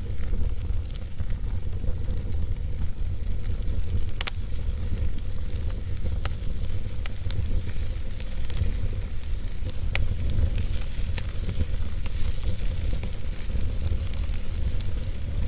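Wood fire burning in a fireplace, a steady crackling hiss with a few sharp pops, over a continuous low rumble.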